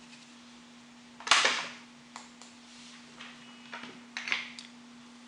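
Knocks and clicks of small objects being handled, likely makeup tools and a palette, with one sharp louder knock about a second in and a few lighter taps after it, over a steady low hum.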